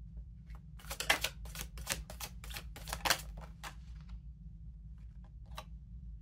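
A deck of oracle cards being shuffled by hand: a quick run of crisp card snaps and taps for about three seconds, then one more tap near the end.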